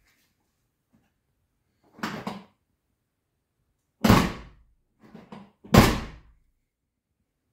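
Tailgate of a Volkswagen Golf Mk3 hatchback being handled. A short rattle comes first, then two loud slams about a second and a half apart, with a few light clicks between them.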